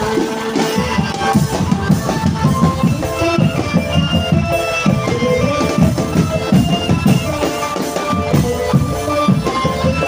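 Drumband music accompanying a costumed dance: dense, rapid drumming under a melody of held notes.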